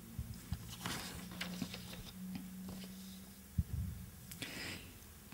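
Faint rustling and small clicks of paper pages being handled and turned by hand, with one sharper knock about three and a half seconds in, over a low steady hum.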